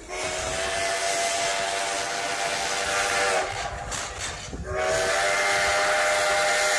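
Steam locomotive's whistle blown in two long blasts, each a chord of several tones over a hiss. The first lasts about three and a half seconds; the second starts about a second later and is still sounding at the end. The train's rolling rumble runs underneath.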